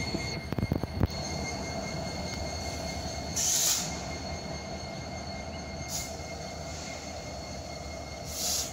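Union Pacific diesel locomotive rolling past, its engine rumbling steadily under a steady high squeal of wheels on rail. A few sharp clicks come about a second in, and short hissing bursts come near the middle and again near the end.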